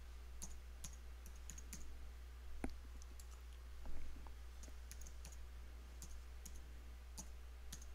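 Faint computer-keyboard keystrokes as a password is typed, irregular light clicks with a couple of louder key presses about two and a half and four seconds in, over a steady low hum.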